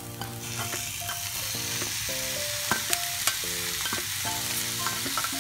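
Boiled clam meat tipped into a hot pan of fried masala, sizzling as it lands; the sizzle swells about half a second in. A spoon clicks and scrapes against the steel bowl and pan as the clams are pushed out.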